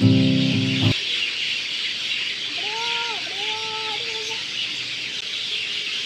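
A brief stretch of music cuts off about a second in, giving way to a dense, continuous chorus of birds chirping, high-pitched. Around the middle, two low arching calls stand out from the chorus.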